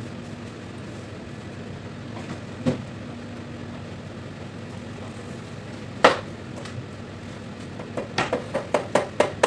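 Sharp metallic knocks and taps from a brass-bodied solenoid valve being handled and knocked against metal: a single knock, a louder one about six seconds in, then a quick run of taps near the end. A steady low hum runs underneath.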